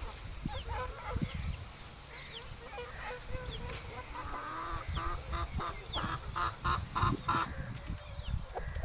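Aseel chickens calling: a run of harsh, evenly spaced calls, about three a second, from about four and a half to seven and a half seconds in, over thin high falling chirps throughout.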